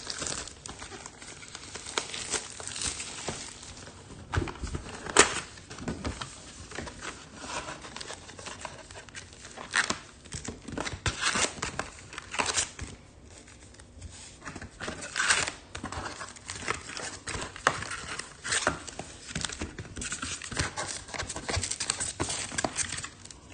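Trading-card pack wrappers crinkling and tearing as hobby packs of Topps Chrome Formula 1 cards are opened, in irregular sharp crackles.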